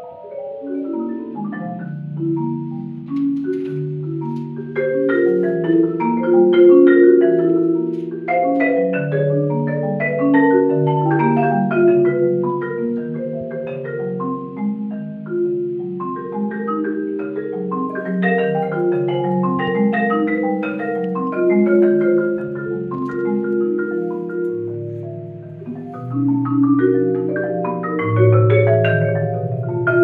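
Solo concert marimba played with mallets: a fast, unbroken stream of ringing notes that overlap one another, mostly in the middle range, with deeper bass notes coming in near the end.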